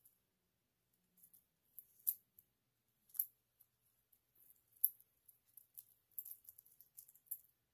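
Thin clear plastic protective film being peeled off the links of a stainless steel watch bracelet: faint, irregular crinkles and crackles.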